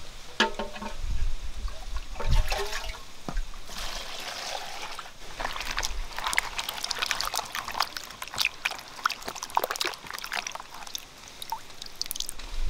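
Two short pours of water near the start, then hands swishing and splashing peeled green mangoes in a plastic basin of water, with irregular splashes and drips.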